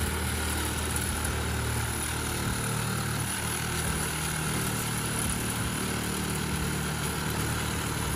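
An engine running steadily, with a low hum and an even hiss.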